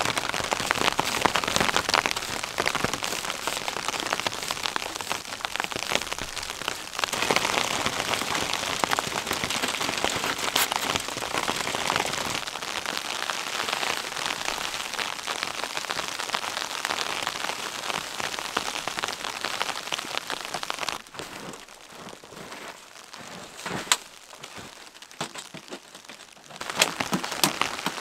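Heavy snowfall hitting the tent fabric and the ground around it: a steady dense hiss of fine taps. About three-quarters of the way through it drops much quieter, with a few sharp knocks near the end.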